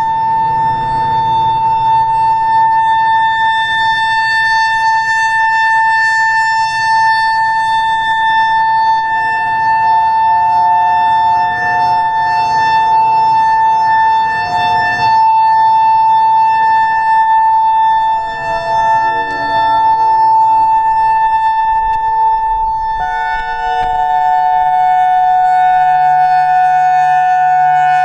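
EOWS 612 electronic outdoor warning siren sounding a steady alert tone, at first on a single pitch. Partway through, a lower tone wavers in faintly, then near the end engages fully, so the siren sounds two steady notes at once (dual-tone): its low tone is failing and cutting in and out on this ailing unit.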